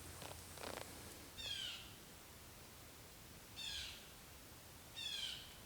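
A bird calling three times, each a short, faint burst of quick, high, falling notes, a second or two apart. A couple of soft clicks come just before the first call.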